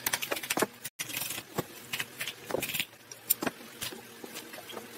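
Irregular clicks, knocks and light rattling, broken by a brief dropout about a second in.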